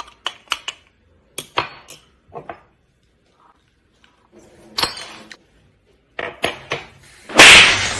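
A run of short, sharp clicks and knocks, some in quick pairs, then a loud, noisy crash-like burst near the end.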